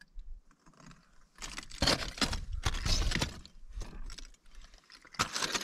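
Footsteps crunching and scraping on loose, brittle lava rock: a run of irregular crunches through the middle, then more near the end.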